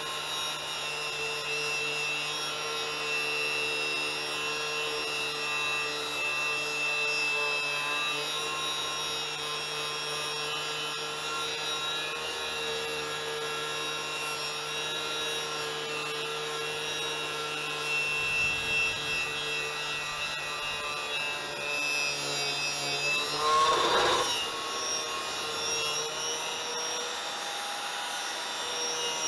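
Power tool running steadily while scraping and rubbing rust and dirt off a Corvette C3 suspension part, with a louder scrape near the end.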